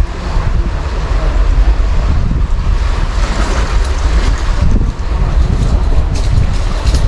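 Wind buffeting the microphone, a steady low rumble over the hiss of open sea air. A few sharp clicks come in near the end.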